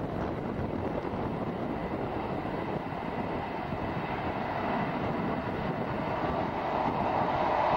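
Class 59 diesel locomotive hauling loaded MGR coal hopper wagons past, a steady rumble mixed with wind on the microphone, growing louder near the end.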